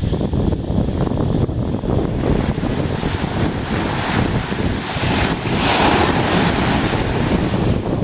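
Small sea waves breaking and washing up the sand at the water's edge, over a heavy low rumble of wind on the microphone. A wave breaks and its wash hisses loudest about halfway through.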